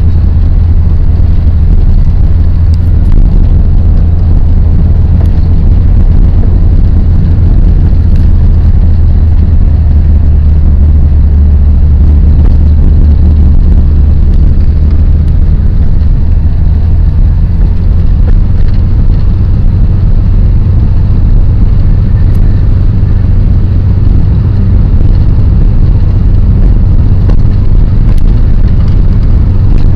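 Vehicle engine and road noise heard from inside the cabin while driving, a loud steady low drone.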